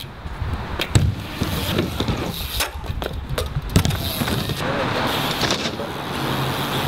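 BMX bikes riding wooden ramps: tyres rolling over plywood, with a run of sharp knocks and clanks from landings and hits on the ramps, the loudest about a second in and just before four seconds.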